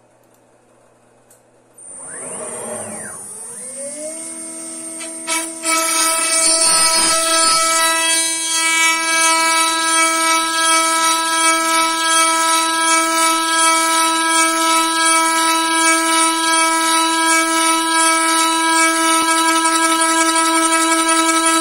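CNC router spindle starting up about two seconds in, its whine climbing in pitch over the next few seconds, then running at speed with a steady, loud, pitched whine as it mills a square wooden blank turning on a rotary lathe axis.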